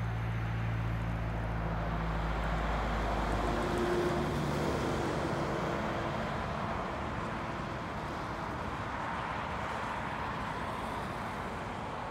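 JEGD level-crossing gate mechanisms humming steadily as they raise the barrier booms, stopping about four seconds in. After that only a steady outdoor rushing background remains.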